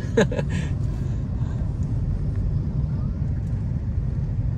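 Steady low rumble of road traffic heard from inside a car cabin: idling engines of the surrounding motorbikes and cars at a jammed intersection. A brief voice sounds right at the start.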